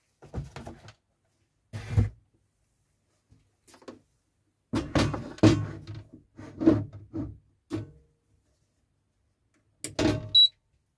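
Irregular knocks and thuds of a digital price-computing scale being handled and set down on a wooden workbench, with its plastic platform cover shifted by hand. A short high electronic beep from the scale comes right near the end.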